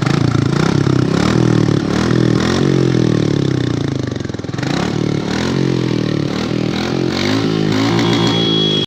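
Royal Enfield Bullet motorcycle's single-cylinder engine being revved repeatedly, its pitch rising and falling several times, with a brief drop in revs about four seconds in.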